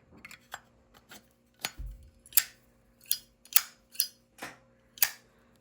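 Metal Zippo lighter cases clicking and clinking as they are handled and set out, about a dozen sharp clicks, a few with a brief metallic ring. There is a dull thump about two seconds in.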